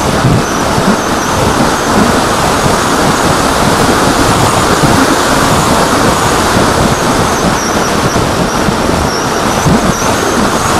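Loud, steady wind rush over the onboard camera microphone of an AXN foam RC plane in flight, with a faint high, wavering whine from its electric motor and propeller.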